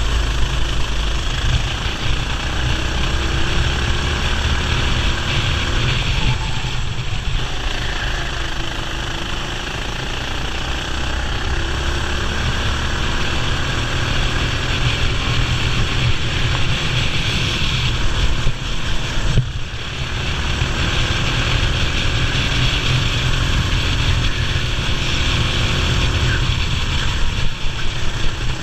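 Racing kart engine at full race running, its pitch rising and falling again and again as it revs up on the straights and drops off into corners, over a dense low rumble.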